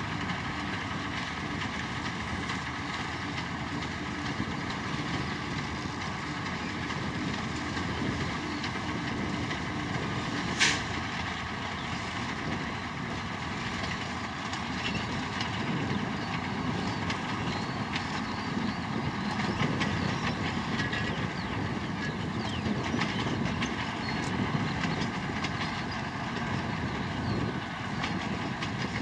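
TU2 narrow-gauge diesel locomotive running steadily as it hauls its coaches past on the line. One sharp click about ten and a half seconds in.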